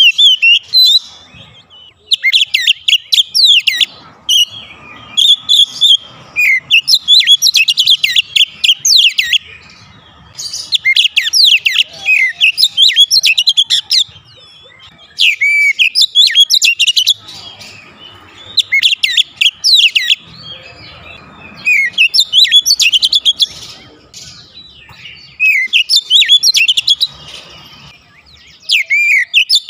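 Oriental magpie-robin singing loudly and without letup: phrase after phrase of rapid whistles and sweeping notes, each lasting a second or two, with short pauses between.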